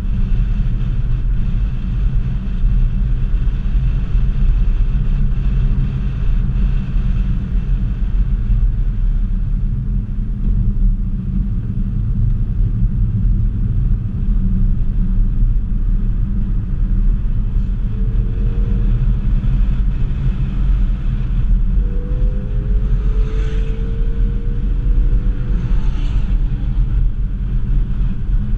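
Ford Focus ST at track speed heard from inside the cabin: a loud, steady low rumble of engine, tyre and road noise. In the second half the engine note rises a few times under acceleration.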